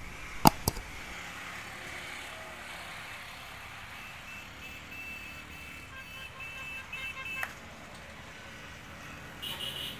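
Road traffic passing on a highway, with a vehicle horn tooting in a rapid run of short high beeps between about four and seven seconds in, and a brief toot near the end. Two sharp clicks about half a second in are the loudest sounds.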